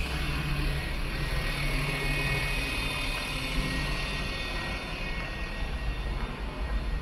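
City street traffic on wet road: a steady hiss of tyres on wet asphalt under the low hum of a vehicle engine, which fades out about halfway through.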